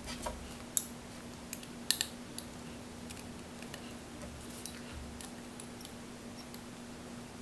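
Scattered small clicks and taps of a hex screwdriver, pliers and metal stack screws against a carbon fiber drone frame plate as the screws are fastened, loudest about a second in and at two seconds. A faint steady hum runs underneath.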